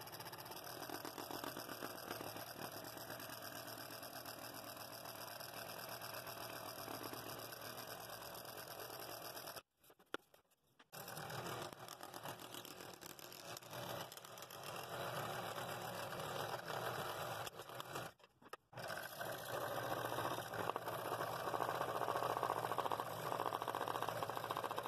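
Scroll saw running with its blade rapidly reciprocating as it cuts through wood. The sound cuts out twice, briefly, about ten and eighteen seconds in, and is louder toward the end.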